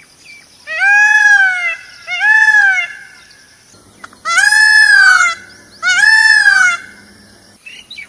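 Indian peafowl (peacock) giving its loud calls: four arched, wailing cries of about a second each, in two pairs, the first pair starting just under a second in and the second near the middle.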